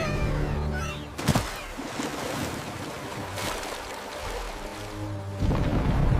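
Background music over a steady wash of water noise like surf or rain, with a sharp tap about a second in and a deep low rumble coming in near the end.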